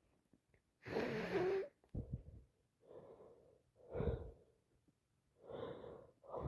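A woman with a heavy head cold taking a series of about five gasping, wheezy breaths, the loudest about a second in and about four seconds in: the build-up to a sneeze.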